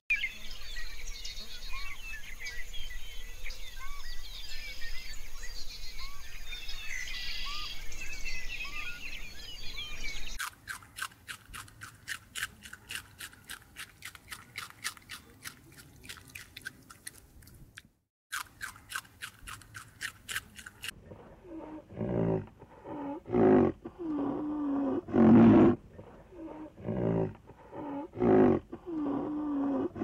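A run of different animal calls: dense high chirping calls, then an even train of clicks at about four a second, then loud pitched calls repeated in the last third.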